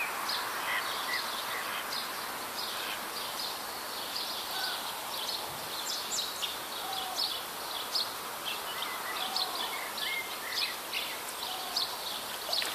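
Small birds chirping and singing in many short calls, over steady outdoor background noise.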